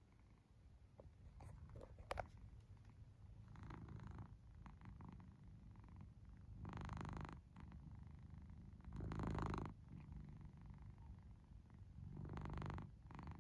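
British Shorthair cat snoring in its sleep: slow, faint, noisy breaths about every two and a half to three seconds over a low rumble. There is a brief sharp click about two seconds in.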